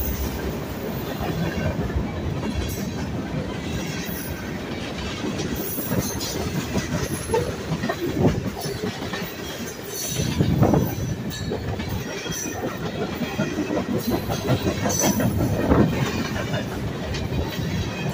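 A freight train's cars (covered hoppers, tank cars and open hoppers) rolling past close by: a steady rumble of steel wheels on the rails with repeated clicks over the joints.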